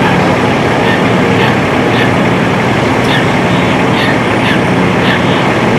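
Fire engine's diesel engine idling with a steady low hum, over a haze of freeway traffic.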